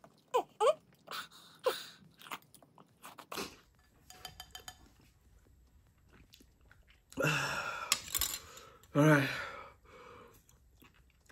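A person eating soup from a bowl with a spoon: chewing and short sharp mouth and spoon clicks in the first few seconds, then two brief wordless vocal sounds about seven and nine seconds in.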